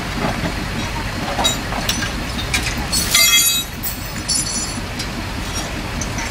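Steady low rumble of vehicles at the roadside, with a few light clicks and one brief, loud, high-pitched screech about three seconds in.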